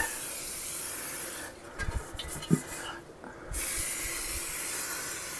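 Aerosol cooking spray hissing in two long bursts as it coats a cake pan, with a few light knocks between the bursts.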